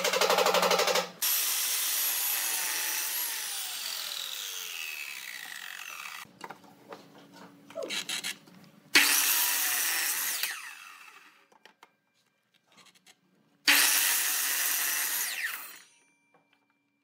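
A power tool working wood in bursts: a buzzing run that cuts off about a second in, then three spells of cutting or rubbing on wood, each ending with the motor's whine falling in pitch as it winds down.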